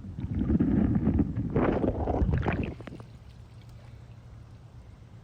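Water sloshing and gurgling around an iPhone's microphone while the phone lies submerged in a muddy trail puddle. About three seconds in, it drops to a faint, steady low rumble.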